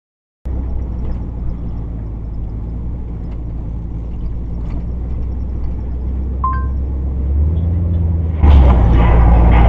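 Car engine and road noise picked up by a dashcam inside the car: a steady low drone. A short beep comes about six and a half seconds in, and a much louder rush of noise begins about eight and a half seconds in.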